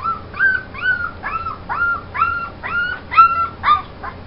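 A young puppy whimpering: a quick run of about nine short, high cries, each rising and then falling in pitch, roughly two a second.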